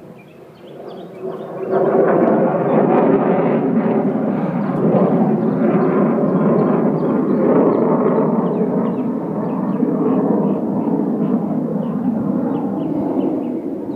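Roar of Blue Angels jets passing overhead. It swells up about two seconds in and then stays loud and steady.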